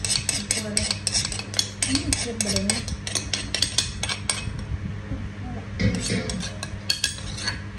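A metal spoon clinking and scraping against a stone mortar and pestle as pounded shrimp-paste chili dip (nam prik kapi) is scraped down off the pestle once the pounding is finished. A quick run of sharp clinks for about the first half, then fewer and more spaced out.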